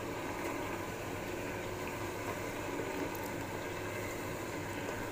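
Marinated chicken wings steadily sizzling as they cook in a hot pot of sautéed tomato, onion and ginger.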